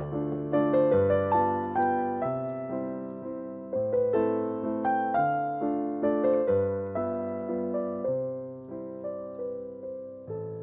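Background piano music: a gentle melody of struck notes, each fading away, several a second over held low notes.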